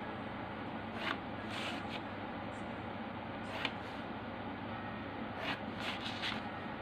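Pencil drawing lines along a ruler on paper, with the sheet handled: a few short scratches and rustles over a steady background hiss.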